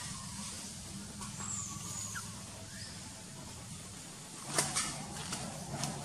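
Outdoor background with a steady low hum, a faint high squeak near the start and a few sharp clicks about two-thirds of the way through.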